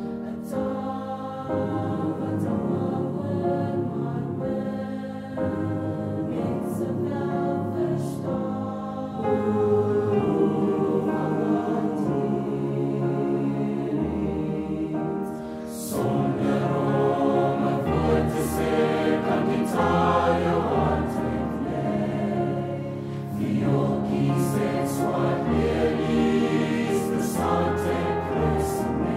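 Mixed-voice school choir singing a sustained part-song with piano accompaniment, swelling louder about nine seconds in and again about sixteen seconds in.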